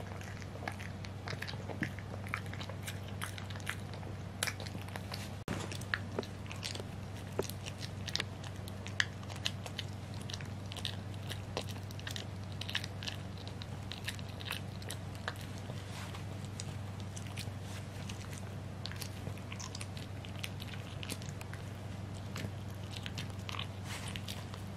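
French bulldog gnawing a hard dental chew, with irregular crunching and clicking bites all the way through. A steady low hum runs underneath.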